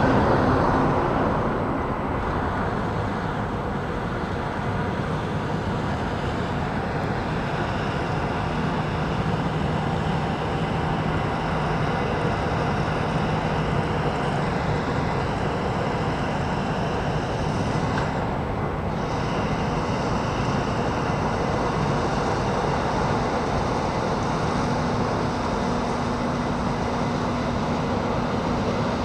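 Corn-harvesting machinery running steadily, a continuous engine drone whose hum shifts in pitch now and then.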